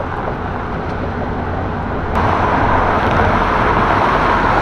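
Road traffic on a busy boulevard: a steady rumble and hiss of tyres and engines, getting louder about two seconds in as vehicles pass close by.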